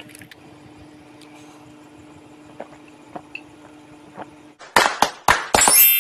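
Faint room tone with a low steady hum and a few small clicks, then, about five seconds in, a run of sharp, loud percussive hits as edited-in music starts.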